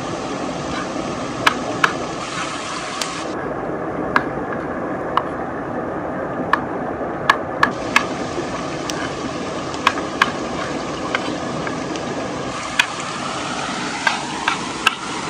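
Kitchen knife chopping tomatoes on a wooden cutting board: irregular sharp knocks of the blade hitting the board, roughly one a second, over the steady rush of a small waterfall into a river pool.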